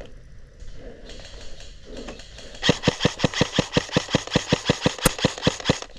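Airsoft gun firing a rapid string of about 25 shots, roughly eight a second, for about three seconds, starting a little under halfway through.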